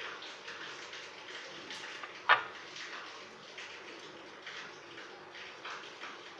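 Palms rubbing together, rolling a soft dough ball of milk powder, ghee and milk, with a soft swishing about twice a second. A single sharp tap a little past two seconds in is the loudest sound.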